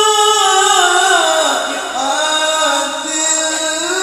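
A male qari reciting the Quran in the melodic tilawah style into a microphone: long held, ornamented notes. The first phrase slides down in pitch, and after a short break about halfway through a new phrase begins on a steady held note.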